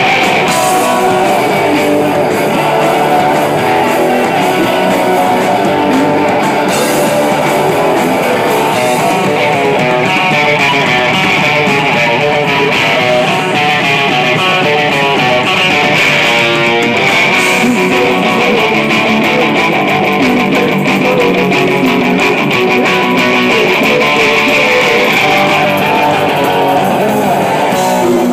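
Live rock band playing loudly: electric guitars over bass and drums.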